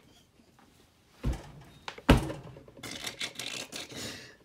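Two dull thumps under a second apart, then a stretch of light clattering and rustling as things are handled on a hard surface.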